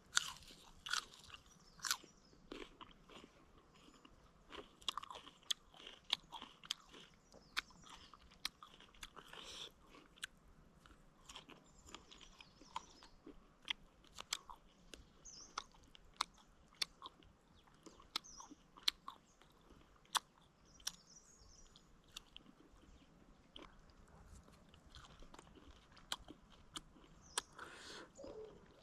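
A person eating tandoori chicken close to the microphone: chewing and biting, with frequent sharp crunches and mouth clicks at an uneven pace.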